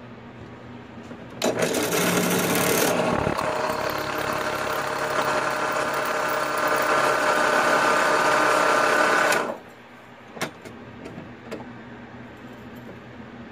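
Drill press bit cutting into a solid copper bar: a loud, steady grinding whine that starts about a second and a half in and stops abruptly about eight seconds later, leaving the motor's low hum, with one short knock soon after.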